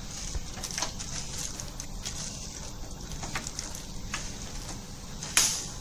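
Plastic wrapping crinkling and rustling in short, irregular crackles as hands handle a bag-wrapped fitting, with one louder, sharper crackle near the end.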